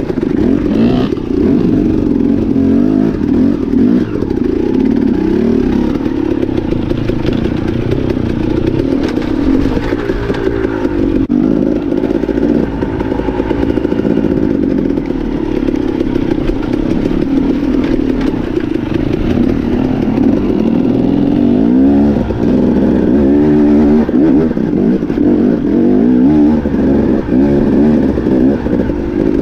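Enduro dirt bike engine heard from the rider's own bike, revving up and down as it picks its way over rocky single-track, its pitch rising and falling again and again, most sharply about two-thirds of the way through.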